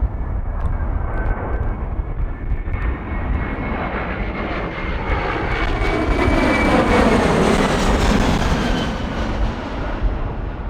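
Jet airliner passing close by on the runway. Engine whine and rush grow louder to a peak about seven seconds in, the pitch falls as it goes past, and the sound then fades.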